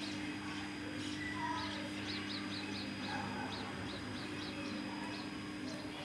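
Small bird chirping, a quick series of short high notes repeated two or three times a second, with a few softer lower calls, over a steady low hum.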